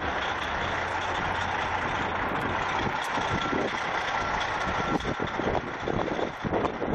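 Steady street noise with a large vehicle's engine running, turning into uneven gusts of wind on the microphone over the last couple of seconds.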